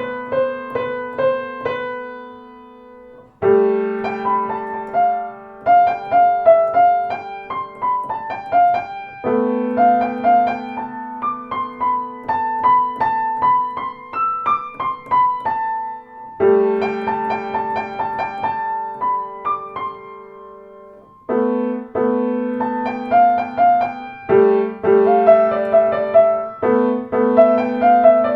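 Solo piano music played on a Blüthner grand piano: a slow melody over held chords that change every few seconds, with short pauses about three seconds in and again about twenty-one seconds in.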